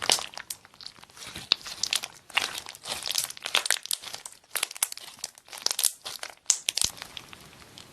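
Slime being squeezed and worked by hand close to the microphone: a dense, irregular run of sticky crackles and small popping clicks, with a short pause a little past six seconds and quieter near the end.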